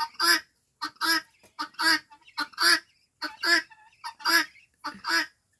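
Guineafowl calling in a steady series of harsh two-note calls, a short note then a longer one, repeating roughly once a second.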